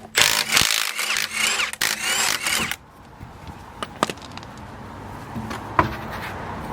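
Power tool spinning lug nuts off a car wheel in two bursts over the first three seconds, its motor pitch wavering as it runs, followed by two sharp metallic clinks.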